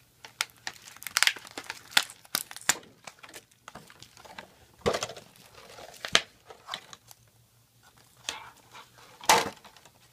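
Clear plastic toy packaging and its cardboard backing card being handled and pulled about, giving irregular crinkling and crackling with several louder snaps.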